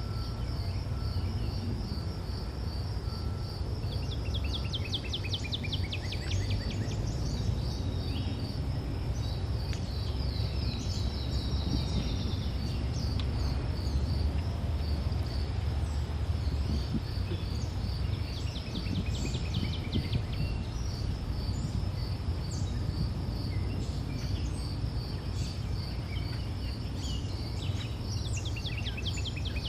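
Forest ambience: insects trilling in a steady, evenly pulsing high buzz, with birds calling in quick rattling series now and then, over a low steady rumble.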